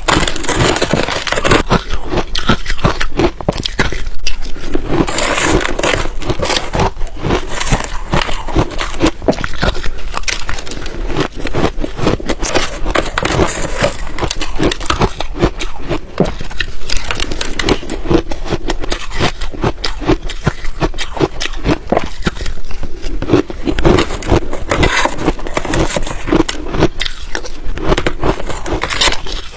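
Ice being bitten and chewed right at the microphone: a dense, continuous run of sharp crunches and crackles with no pauses.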